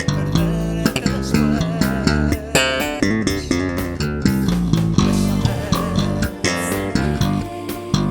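Electric bass guitar being played: a busy run of plucked notes with sharp attacks, one of them held with vibrato about halfway through.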